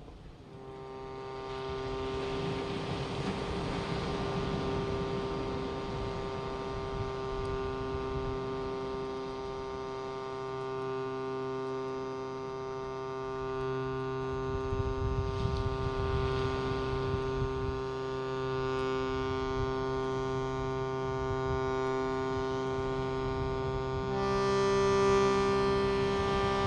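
Shruti box droning: several reeds sound a steady chord as the bellows are pumped. The drone swells in about half a second in, and near the end a further lower reed joins and the tone grows brighter.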